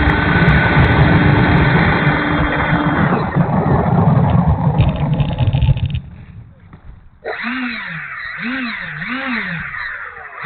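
Twin 64 mm electric ducted fans of an E-flite A-10 RC jet running with a rushing noise and a faint steady whine, the whine fading about 3 s in and the sound cutting off abruptly about 6 s in; one motor is going bad, which the owner hears as sounding worse. From about 7 s, a crow caws repeatedly.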